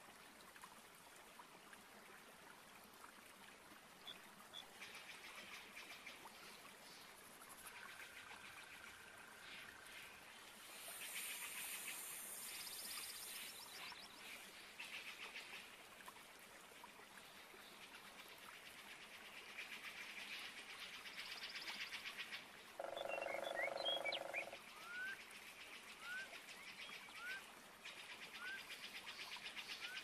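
Amazon rainforest ambience: a faint chorus of animal calls in fast pulsing trills. About three quarters of the way through a deeper call with several stacked tones sounds for a second or so, and near the end short rising chirps repeat about once a second.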